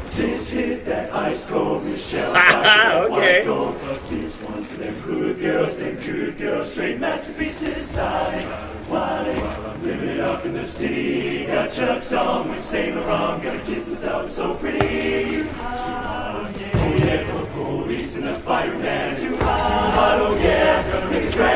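Vocal FX, an a cappella barbershop chorus, singing a funk medley with many voices in harmony. Short sharp percussive hits run through the singing.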